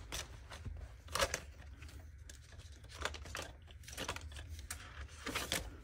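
Faint handling of a cash binder: its strap and plastic envelope pages being moved, with rustling and crinkling and scattered light clicks.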